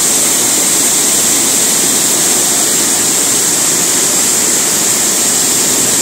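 Waterfall pouring down a cliff into a pool: a steady, loud rush of falling water.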